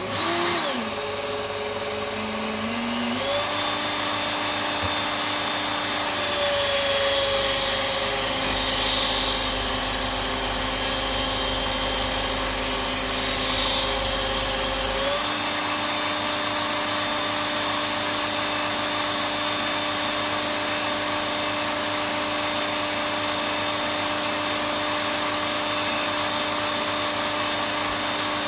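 Work Sharp Ken Onion sharpener with the blade grinding attachment starting up and running, its abrasive belt grinding the steel bit of an axe. The motor's whine rises as it comes up to speed, then steps in pitch a few seconds in and again about halfway as the load changes, over a steady rasp of the belt on steel.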